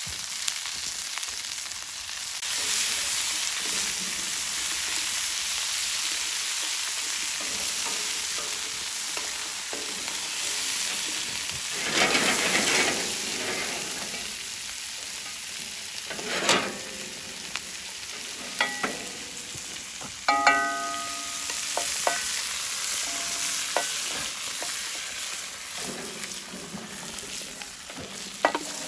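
Chopped vegetables and bacon sizzling in a heavy steel pan, with a wooden spoon stirring through them. Past the middle come a few sharp metal clanks that ring briefly as the pan knocks against the cast-iron Dutch oven it is being emptied into.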